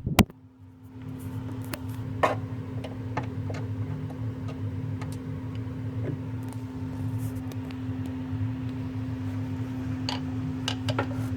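Scattered light clicks and taps of a screwdriver prying a battery strap over a bracket hook, heard over a steady background hum.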